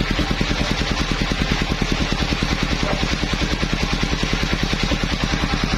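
Engine of a mobile circular sawmill running steadily with a rapid, even beat, not cutting.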